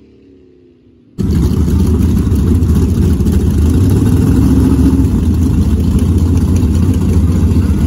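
Drag-racing pickup truck engines running loud and steady at the starting line, a heavy low rumble that cuts in suddenly about a second in, after a faint engine fading away.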